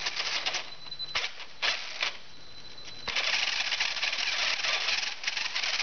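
Tamiya TL-01 electric touring car's gearbox and drivetrain spinning with the wheels off the ground, the throttle blipped in bursts, with a rattling gear grind from the gears and diffs. A thin high whine shows in the lulls, which the owner puts down to a worn motor.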